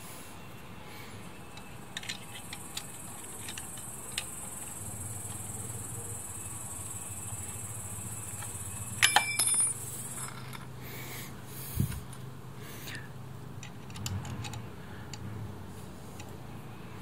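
Hand tools working on metal parts: scattered light clicks, a loud ringing metallic clink about nine seconds in, a dull knock a little later, and a few softer clinks near the end. A faint steady high hiss runs under the first part.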